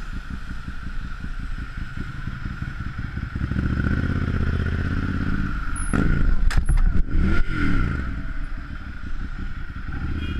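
Ducati Monster 796's air-cooled V-twin running at low revs with a steady pulsing exhaust, pulling a little harder for a couple of seconds. About six seconds in, hard braking is followed by a sudden clatter and several sharp knocks as the bike runs into the back of the motorcycle ahead, while the engine note sweeps down and back up.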